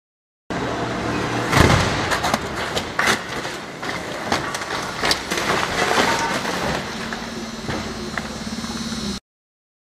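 A police car flipped in a film stunt crashing onto the road: a loud bang about a second and a half in, then several more clattering impacts as it tumbles and settles upside down. A steady low hum comes in near the end before the sound cuts off abruptly.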